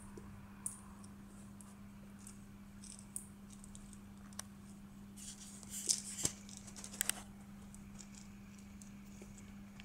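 Light rustling and scattered small clicks as a kitten paws and pounces at a plastic ball toy on a quilted paper pet pad, busiest around the middle. A steady low hum runs underneath.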